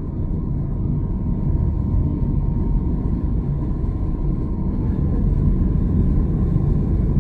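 Steady low rumble of a car driving, its road and engine noise heard from inside, slowly growing a little louder, with a faint steady whine.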